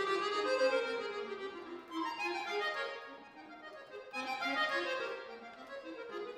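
Cooperfisa concert accordion played solo in fast runs of notes, growing quieter about three seconds in before swelling again.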